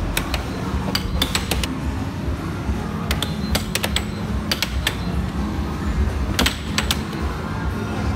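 Air hockey puck clacking against the plastic mallets and the table rails in quick irregular bursts of sharp clicks, over a steady low background hum.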